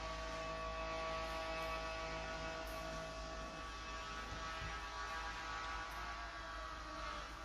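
A steady hum made of several held tones, with a low drone underneath.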